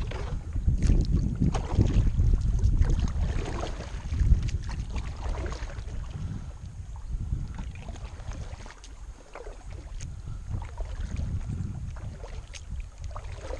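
Kayak paddle strokes, the double blade dipping and splashing in the water with scattered drips, under a low wind rumble on the microphone that swells and fades.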